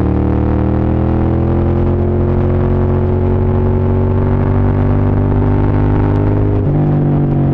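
Moto Guzzi Centauro's transverse V-twin engine running under way on a test ride, its note rising slowly as it pulls, then shifting abruptly about a second before the end.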